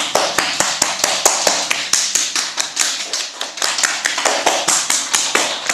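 Hands rapidly patting and tapping the legs, a fast, uneven run of sharp slaps that gives the legs an applause-like round of taps.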